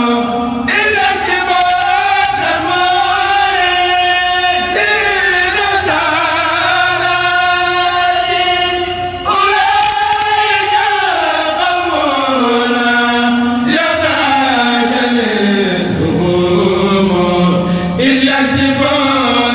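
A kourel choir of male voices chanting a Mouride xassida together in long held notes that glide slowly up and down, with a short break for breath about nine seconds in.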